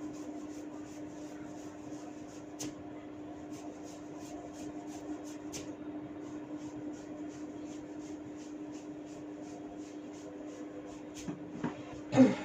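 Hair cracking: faint, quick snapping clicks, about three a second, as locks of hair are tugged, over a steady low hum. Near the end come a few louder knocks, the last by far the loudest.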